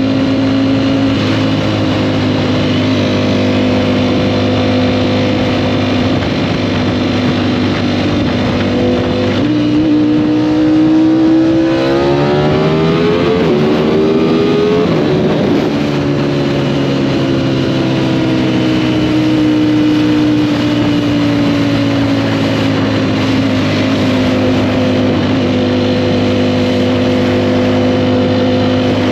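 Sport motorcycle engine under way, riding at a steady pitch, then about ten seconds in revving up through a rising whine for several seconds before the note drops abruptly, and afterwards slowly falling back and holding steady again.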